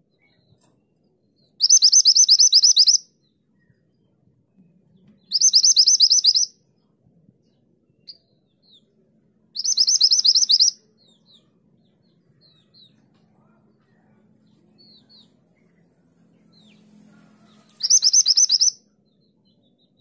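Grey-chinned minivet calling: four bursts of fast, high repeated notes, each about a second long, the 'tulit tulit' call, with a few faint short chirps between them.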